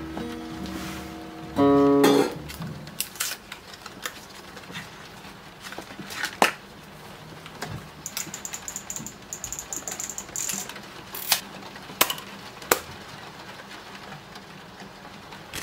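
A guitar chord is strummed about two seconds in and rings briefly. Then come the mechanical clicks and rattles of a Zenit TTL 35 mm film camera being handled and loaded with film, with three sharp clicks near the end.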